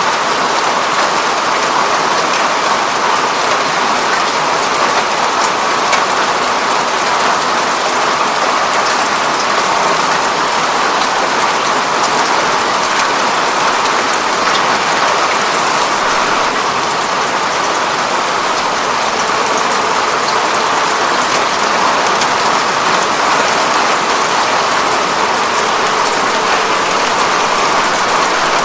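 Steady rain falling on a window pane, an even patter with scattered drop ticks.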